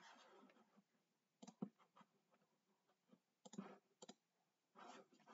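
Faint computer mouse clicks: a couple about a second and a half in, a small cluster around three and a half to four seconds, and another near the end.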